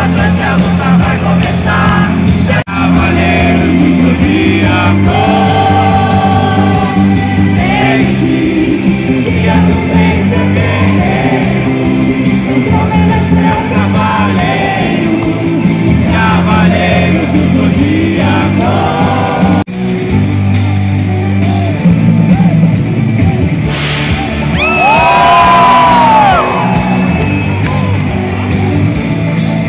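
Live band and singer performing an anime song in a large hall, with shouts from the crowd; near the end the singer holds one long note.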